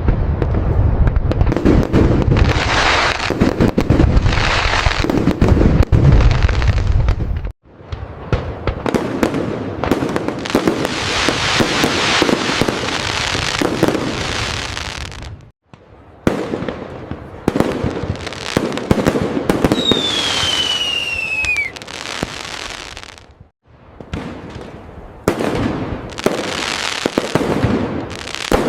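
Fireworks display: dense aerial bursts with booms and crackling, in stretches of about eight seconds that cut off abruptly three times. The heaviest low booms come in the first stretch, and a whistling shell gives one falling whistle about two-thirds of the way through.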